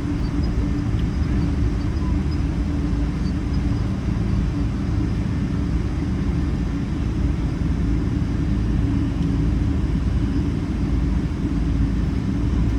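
Steady rumble of a Boeing 777-300 airliner heard from on board: engine and airflow noise with a low, constant hum.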